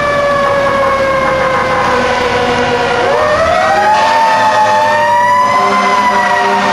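Fire truck siren wailing: its pitch slowly falls, then winds back up about three seconds in and tops out near the end before starting to drop again.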